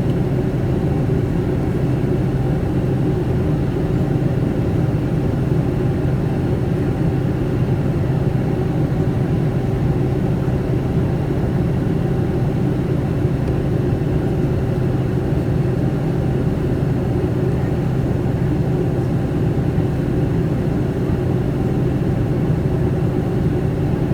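Boeing 757-200 cabin noise in flight: a steady, unchanging drone of engines and airflow with a low hum.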